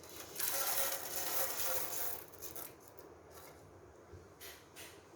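Rubbing and scraping sounds for about two seconds, then quieter, with two faint short sounds near the end.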